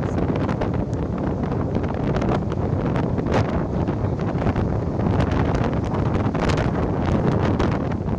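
Storm wind blowing hard across the microphone: a steady, heavy rush with frequent crackles.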